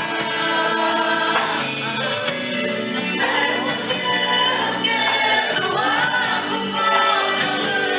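A choir singing a Christian worship song over a band, the voices holding long notes, with a regular high percussion tick throughout.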